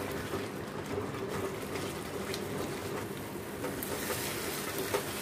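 Thick wheat-and-jaggery halwa bubbling and sizzling in a nonstick pan while it is stirred with a spatula, with a few light knocks of the spatula. The water is nearly cooked off and the ghee is starting to separate.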